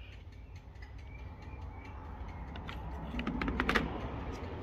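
Velocette LE clutch plates being handled and set down in a plastic tub: a few light clicks, then a quick run of sharper clicks about three seconds in, metal and friction plates knocking together.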